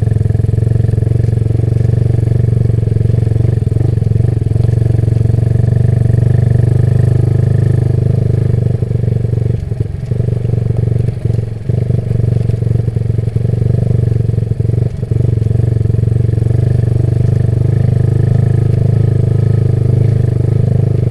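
Motorcycle running at a steady cruise, with a constant low rumble and a few brief drops in level around the middle.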